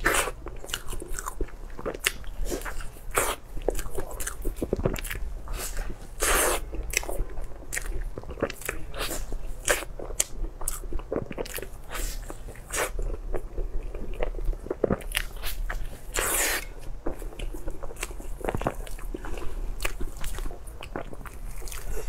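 Close-miked biting and chewing on a large, flaky piece of food: many short, sharp crunching bites in an irregular run, over a steady low hum.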